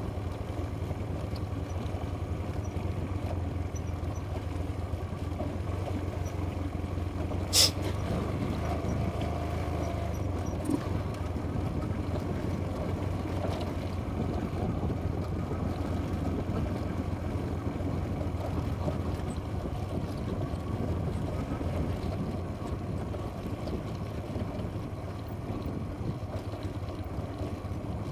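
Small motorcycle engine running steadily at low speed, with a constant low hum and wind noise. One sharp knock about seven and a half seconds in, and a fainter one about three seconds later.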